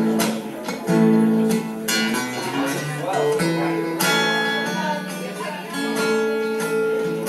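A 1963 Gibson J-50 acoustic guitar, amplified through a Fishman Rare Earth pickup, played fingerstyle in a blues manner. Chords and bass notes are struck about every one to two seconds and ring on between strikes.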